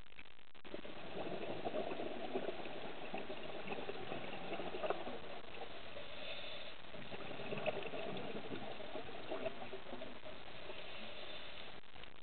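Steady underwater bubbling and crackling with scattered small pops, recorded on a dive. The sound changes abruptly near the end.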